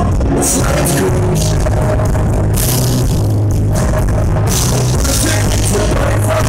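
Live rock band playing loudly, with drums and electric guitar.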